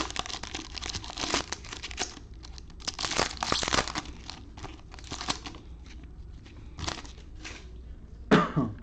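A trading-card pack wrapper being torn open and crinkled, in bouts of crackling with sparser rustles and clicks between. A short falling sound near the end.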